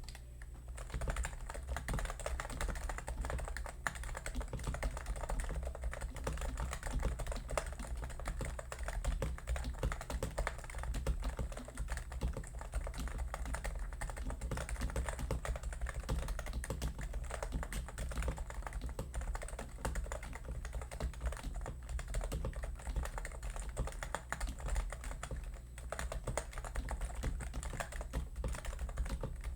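Typing on a Topre Realforce R3S TKL keyboard: a continuous, irregular stream of keystrokes on its Topre electrostatic capacitive rubber-dome switches, starting about a second in, over a steady low hum.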